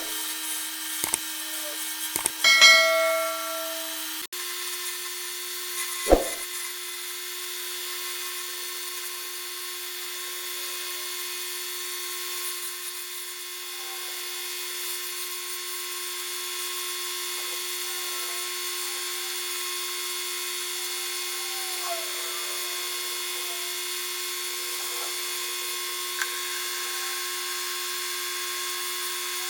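Wood lathe running with a steady motor whine and a light cutting hiss. A sharp knock comes about six seconds in.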